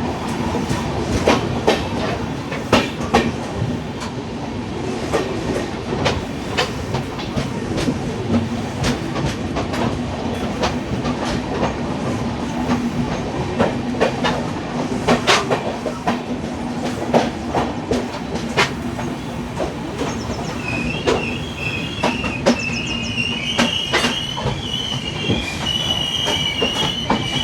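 LHB passenger coaches running on the rails: a steady rumble with irregular clacks of the wheels over rail joints. About twenty seconds in, a wavering high-pitched wheel squeal starts up and grows stronger.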